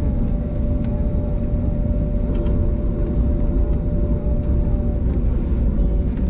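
Jet airliner cabin noise while taxiing: a steady low rumble of the engines and rolling gear with a steady hum running through it, and a few faint ticks and rattles.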